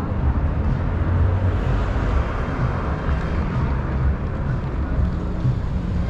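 A car driving along a city street: a steady low engine rumble with tyre and road noise, swelling briefly about two to three seconds in.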